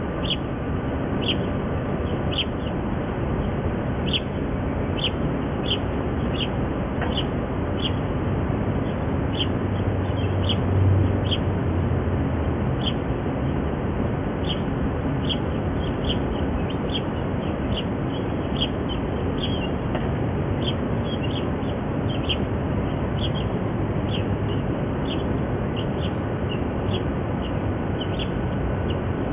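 Mallard ducklings peeping: short high peeps about once or twice a second, coming more often in the second half, over a steady low background rumble.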